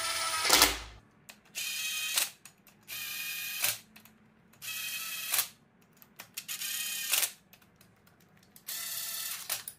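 Small cordless impact driver with a T55 Torx bit running the cylinder-head bolts of an Audi 2.0-litre turbo engine down to seat them. It goes in short whirring, hammering bursts under a second long, about every second and a half, with quiet between.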